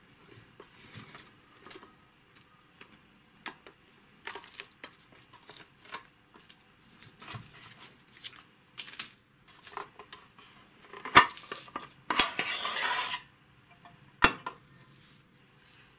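Very old adhesive tape peeled off a metal instrument case, with scattered crackles and clicks. A sharp metallic knock comes about eleven seconds in, then about a second of scraping as the metal case slides off the instrument's chassis, and another knock just after.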